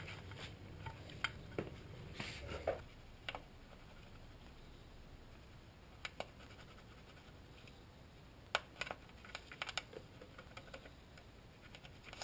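Faint, scattered clicks and brief scrapes of hands and tools handling metal parts, with a small cluster of quick clicks a little past the middle.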